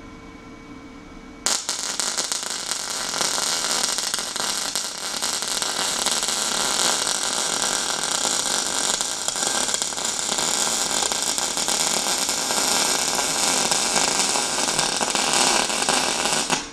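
Welding arc from a Lincoln 210 MP welder crackling steadily as a butt weld is run around a steel exhaust pipe. It starts suddenly about a second and a half in and cuts off just before the end.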